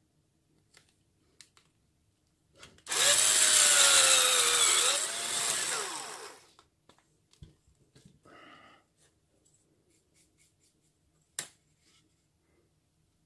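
Electric drill held in a drill stand running for about three and a half seconds, boring into a wooden board. Its motor pitch sags and recovers under load, then falls as it winds down. Light handling knocks follow, then a sharp click near the end.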